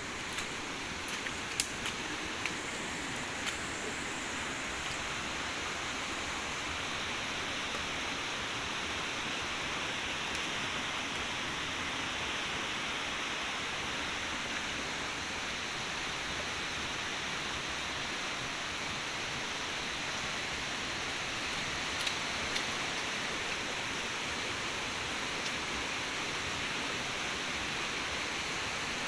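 Heavy rain falling steadily, a dense even hiss, with a few sharp taps in the first few seconds and again about two-thirds of the way through.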